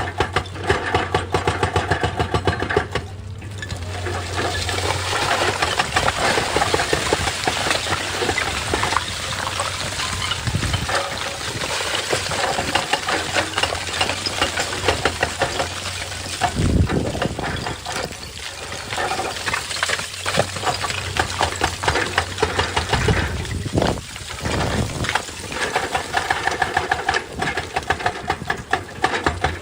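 Excavator's diesel engine running under load, with a dense, rapid train of knocks over a steady low hum.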